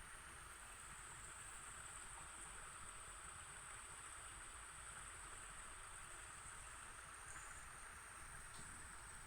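A steady, high-pitched continuous drone that holds at one pitch throughout, over a faint even hiss.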